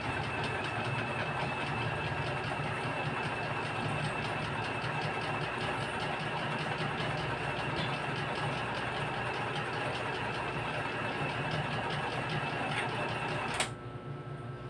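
Small electric sewing machine running continuously with a fast, even stitching rhythm and a steady motor whine, stopping abruptly with a click near the end.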